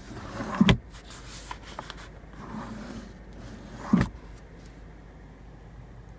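Handling knocks and rustles from a car's centre-console storage compartment, with a thud about four seconds in as the padded armrest lid is shut.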